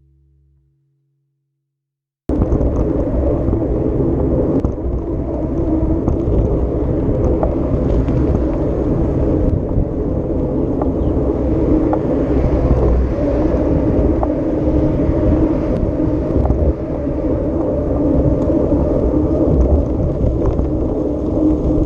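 Riverside 500's engine running under way over rough ground, a dense steady rumble with scattered small knocks and jolts. It cuts in abruptly about two seconds in, after a short silence.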